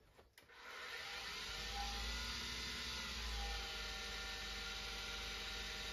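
Jet wood lathe switched on about half a second in. The motor spins up quickly and then runs with a steady whir and low hum, turning a square wooden blank; its pitch wavers slightly.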